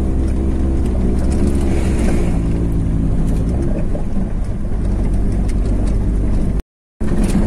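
Chevrolet car's engine running and tyres rolling on a rough dirt road, heard inside the cabin, with scattered light knocks and rattles. The engine note changes about three and a half seconds in, and the sound cuts out for a moment near the end.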